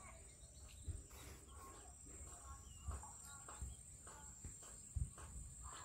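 Faint outdoor ambience: a steady high-pitched insect drone, with a few soft knocks, the clearest about five seconds in.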